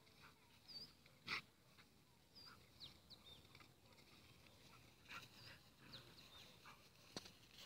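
Quiet: a few faint, short, high bird chirps, with a sharp click about a second in and another near the end.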